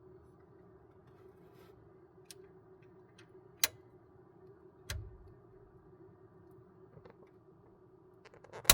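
A few sharp clicks and taps of a metal tool against the printer's hotend, the loudest right at the end, over a faint steady hum.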